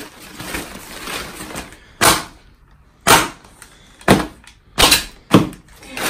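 Air-filled plastic packing being burst by hand or foot: five loud, sharp pops, about one a second in the second half, after a couple of seconds of rustling.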